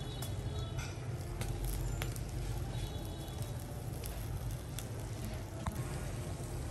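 Charcoal fire under a foil-wrapped fish, crackling with scattered sharp pops over a steady low rumble.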